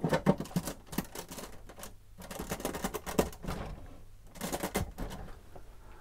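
Small plastic LEGO pieces clicking and rattling as they are pressed into place on a build, in three clusters of quick clicks with short pauses between.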